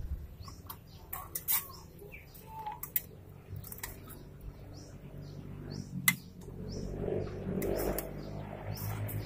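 Birds chirping repeatedly, with one sharp click about six seconds in and a low rushing noise over the last couple of seconds.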